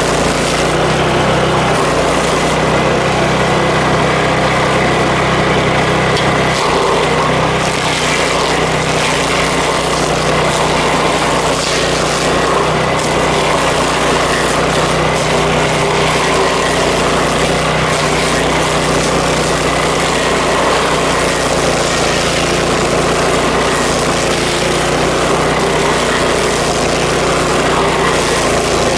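Power King stump grinder running steadily, its engine holding a constant pitch under a dense, rough mechanical noise.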